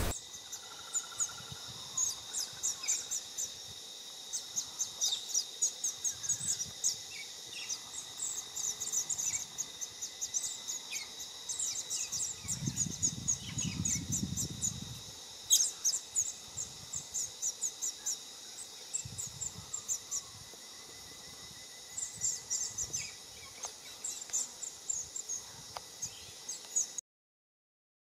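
Flock of scarlet honeyeaters calling, many short high chirping notes in quick runs, over a faint steady high tone. A low rumble comes in for a few seconds midway, and the sound cuts off suddenly near the end.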